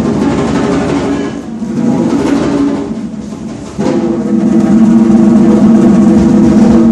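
Rapid drumming, with a steady held tone joining strongly about halfway in.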